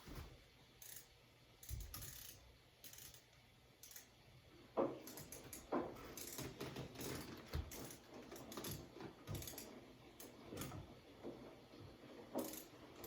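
Ratcheting screwdriver tightening the screws of a wall light switch: faint, irregular clicks and small metallic taps.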